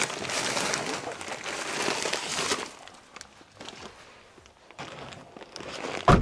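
Plastic shopping bags and plastic fertilizer packets rustling and crinkling as they are rummaged through and pulled out of a car's back seat, loud for the first two and a half seconds, then softer rustles. Just before the end a car door slams shut with a heavy thud, the loudest sound.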